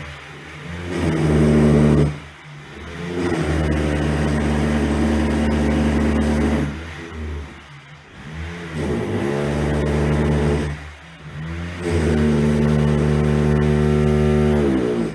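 Electric drill motor run in about four bursts, each speeding up with a rising whine, held steady, then winding down with a falling pitch.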